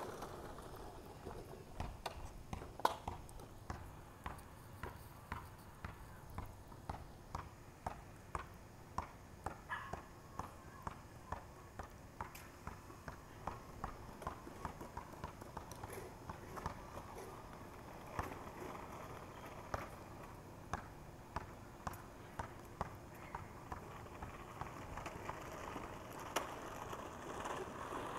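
A rubber play ball bouncing on a concrete sidewalk, dribbled steadily about one and a half times a second. The plastic wheels of a child's ride-on trike rumble over the concrete at the start and again near the end.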